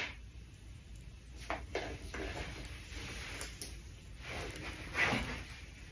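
Faint handling sounds: a few light knocks and soft rustles as a canvas crossbody bag is lifted off by its strap.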